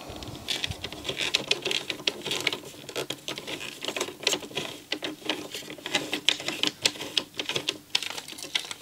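Denon DCD-F100 CD drive mechanism and its plastic disc tray handled and pushed by hand: a run of irregular plastic clicks and light rattles.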